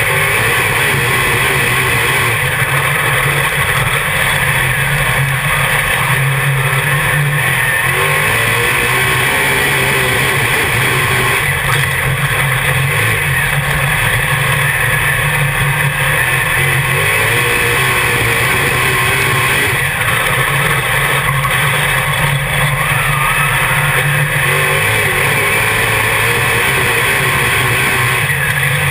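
Dirt Modified race car's V8 engine running hard at racing speed, heard from inside the cockpit: a loud, steady engine sound whose pitch rises and falls every few seconds as the revs change.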